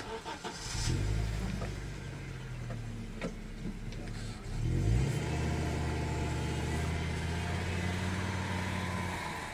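A motor vehicle's engine running. It comes in about a second in, rises in pitch as it revs about halfway through, then holds steady.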